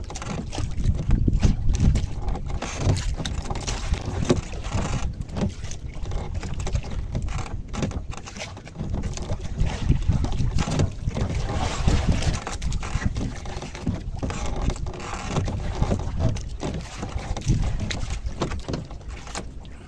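Gusty wind buffeting the microphone, with waves washing against a small fishing boat on a rough sea; the level rises and falls unevenly with scattered knocks.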